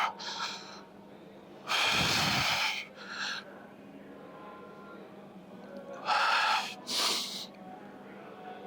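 A man breathing hard during weight training: several sharp, forceful breaths, one at the start, two around two to three seconds in, then two close together about six to seven seconds in.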